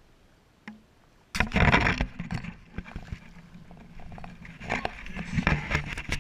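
Camera handling noise: a sudden burst of scraping, bumping and rumbling about a second in, with sharp knocks scattered through it, as the camera on the concrete wall is jostled and moved while a bass is swung up out of the water.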